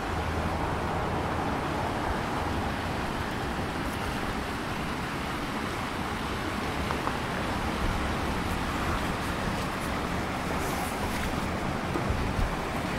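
Steady outdoor street ambience: an even wash of noise with no distinct events, apart from a small knock near the end.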